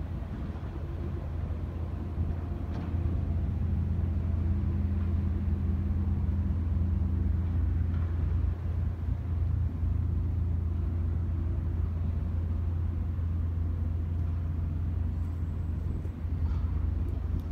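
Diesel engines of river work boats, the tug and the barge-mounted excavator dredging the riverbed, running with a steady low drone. A second, higher engine tone comes in about four seconds in and drops out a few seconds later.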